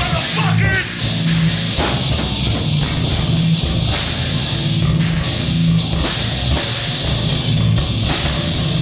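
Live heavy rock band playing loud: distorted electric guitar, bass and drums.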